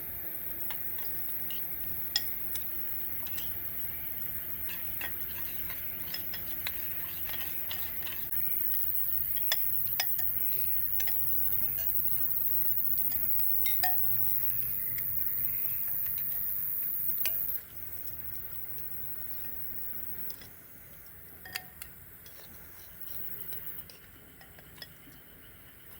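Spoons and dishes clinking: scattered light clinks and scrapes of cutlery against bowls during a meal, over a steady high hiss of outdoor background.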